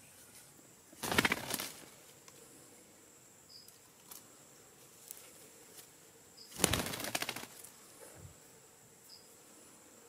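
A parrot's wings flapping in two short bursts, about a second in and again about two-thirds of the way through, the second as a bird flies in to the tree-hollow nest. A few faint, short, high chirps come in between.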